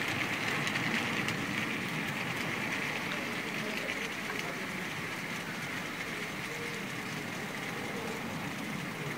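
OO-gauge model train running along garden track, a steady motor whine with fine clicking of wheels over the rails, fading as the train draws away.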